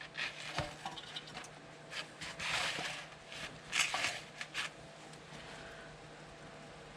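Scattered clicks, scrapes and rustles of hands handling a catch can drain and a measuring cup, growing quieter in the last two seconds.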